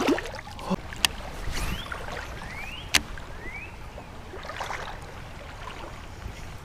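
Water splashing as a released smallmouth bass swims off at the very start, then a steady wash of river water around a wading angler. Two sharp clicks about one and three seconds in, and a few short rising chirps in between.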